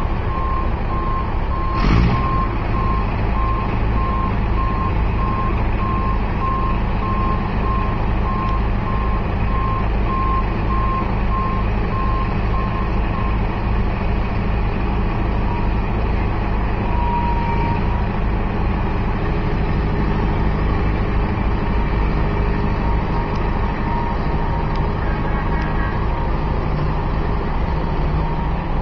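Backup alarm on a heavy construction vehicle beeping steadily over the low running of its diesel engine, with a sharp knock about two seconds in. The beeping stops about halfway through and the engine keeps running.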